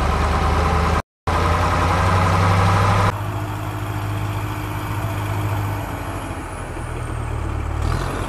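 A vehicle engine idling with a steady low rumble. It drops out briefly about a second in, then changes about three seconds in to a quieter engine hum with a faint high whine that slowly falls away.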